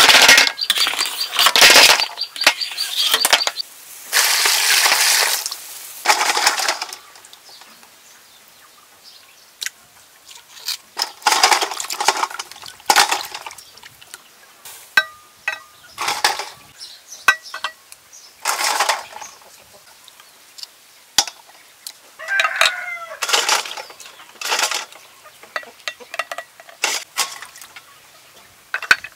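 Cooked snails clattering in a metal pot and then rinsed by hand in a basin of water: bursts of splashing and shells clinking. A rooster crows in the background about three-quarters of the way through.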